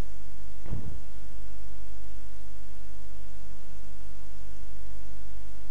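Steady electrical mains hum in the recording, a low buzz with evenly spaced overtones, typical of a ground loop in the microphone or recording chain. A brief short noise comes a little under a second in.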